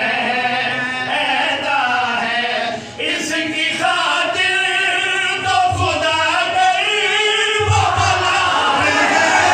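Men chanting a devotional qasida without instruments, more than one voice singing together in long, drawn-out melodic lines.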